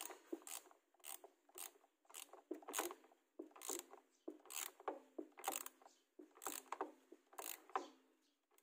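Ratchet head of a torque wrench clicking in short runs, about two a second, as it is swung back and forth tightening the clutch cover bolts.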